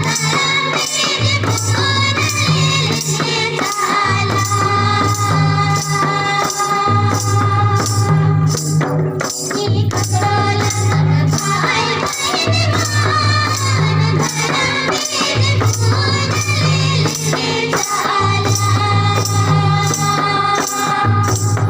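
Music: a sung melody over a steady beat, with a low bass figure repeating about once a second and regular high percussion strokes.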